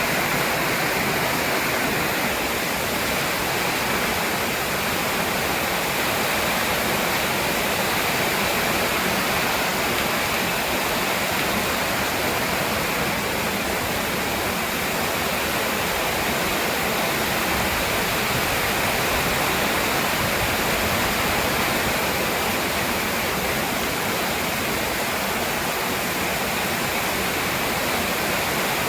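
Heavy storm rain pouring down in a steady, loud rush.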